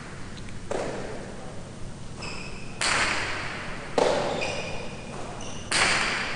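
Jai alai rally: the hard pelota cracking off the court walls and into the wicker cestas, four sharp hits each ringing in the big hall, with short shoe squeaks on the court floor between them.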